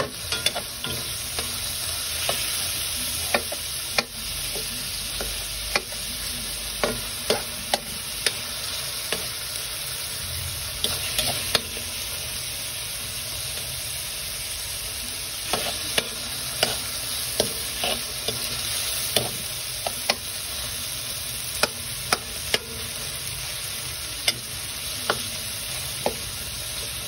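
Sliced tomatoes and onions sizzling in oil in a metal wok, stirred with a metal ladle that scrapes and clicks against the pan at irregular intervals, often a few times in quick succession.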